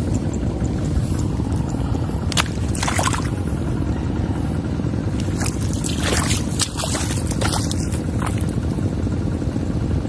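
Splashing and sloshing in shallow water of a flooded field, a short cluster about two and a half seconds in and a longer run from about five and a half to eight seconds in, over a steady low rumble.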